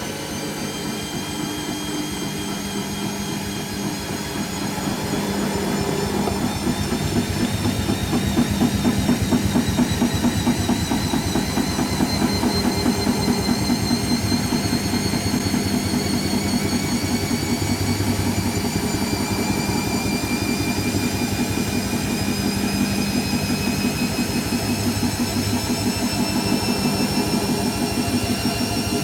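Hoover Nextra HNL71463D washing machine speeding up in its spin, the motor's whine rising slowly in pitch over a low drum rumble and vibration. It gets louder from about five seconds in, then holds steady as the drum climbs toward its 1400 rpm top speed.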